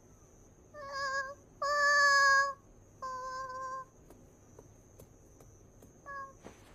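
A cat meowing four times in high, drawn-out calls, the longest and loudest about two seconds in and a short, faint one near the end.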